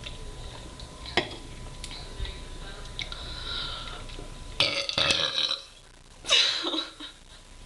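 A person burping after drinking carbonated soda. There are two loud burps in the second half, the second one falling in pitch.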